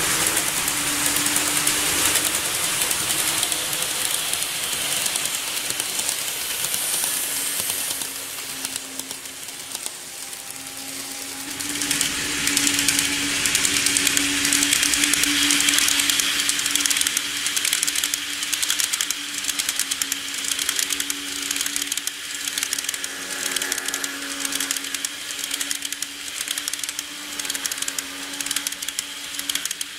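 KATO N-gauge model electric trains running on track: a steady motor hum with a hiss and a rapid, even clicking of wheels over rail joints. The sound dips about eight seconds in, then grows louder from about twelve seconds in as the next train approaches.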